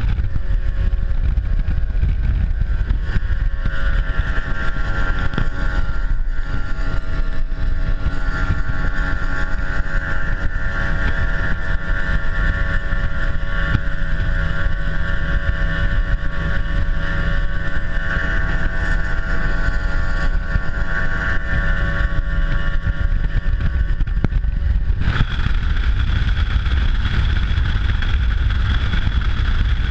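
Mercury Pro XS 250 hp outboard running steadily at high speed, pushing a bass boat across the lake, with a strong rush of wind and hull noise. The steady engine drone fades under the wind rush about 25 seconds in.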